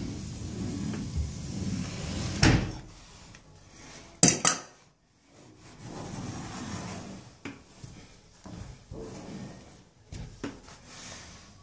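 Cloth rubbing and scrubbing along the plastic edge of a shower tray, with a few knocks; the loudest is a sharp double knock about four seconds in.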